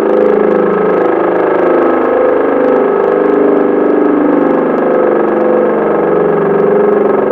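Low-tone unit of an old Type L138 siren sounding the "Feueralarm" test signal. It holds a deep, steady tone without a break, its pitch wavering slightly.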